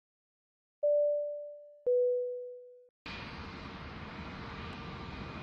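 A descending two-note electronic chime, each note ringing out and fading over about a second. About three seconds in, the steady engine noise of a jet aircraft on approach cuts in suddenly: the Embraer KC-390's twin turbofans, with a faint steady whine over broad noise.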